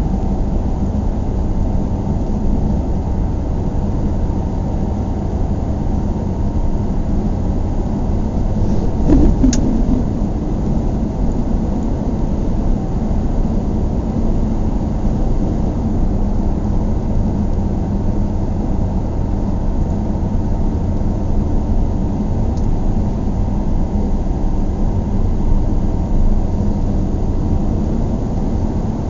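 Steady road and engine rumble inside a moving car's cabin, heavy in the low end and even throughout. About nine seconds in there is a brief knock, like a bump in the road or something shifting in the car.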